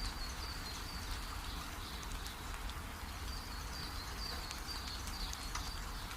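Steady rain falling, with a bird chirping over it in a run of short, high repeated notes and a constant low rumble underneath.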